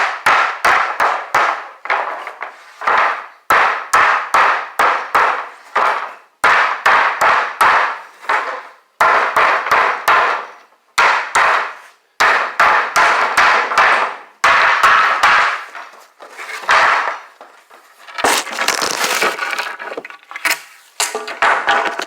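Hammer striking wooden planks over and over, in quick runs of blows of about two to four a second with short pauses between runs. Each blow is sharp with a brief ringing tail. Near the end the blows come closer together and run into one another in a denser clatter.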